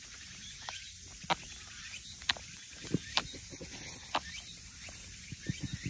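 Tabby cat rubbing its head against a mesh sneaker and pawing at it, its fur and claws scuffing the fabric, with a few sharp clicks about a second apart and a run of soft knocks near the end.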